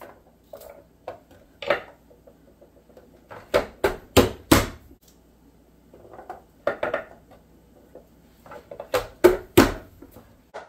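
Carrots being diced in a manual push-down vegetable chopper: a knife cutting carrot chunks on the plastic blade grid and the lid pressed down hard, forcing them through the blades. Sharp crunching clacks come in bunches, with the loudest run about four seconds in and another near the end.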